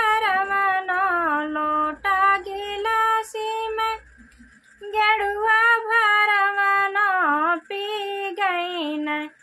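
A woman singing a Bhojpuri naach geet (folk dance song) solo, in long held notes that bend and waver, breaking off for about a second near the middle before going on.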